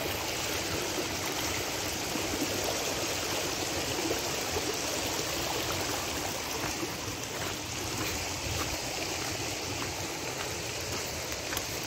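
Muddy flash-flood water rushing steadily down a shallow desert wash after heavy rain.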